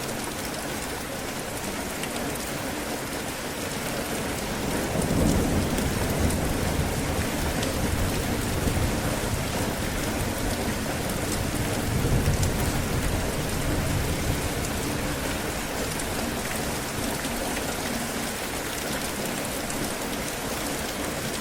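Steady heavy rain pouring down, with low rolls of thunder rumbling about five seconds in and again about twelve seconds in.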